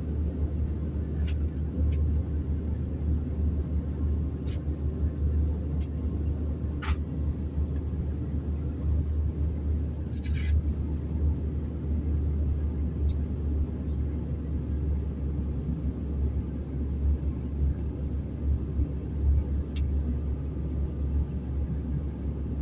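Steady low rumble of an airliner cabin in flight, the noise of the jet engines and the air rushing past the fuselage. A few faint clicks and a brief hiss about ten seconds in.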